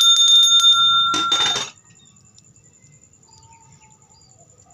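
A Balinese priest's hand bell (genta) ringing with quick repeated shakes. It ends about a second and a half in with a short rattling burst, leaving only a faint background.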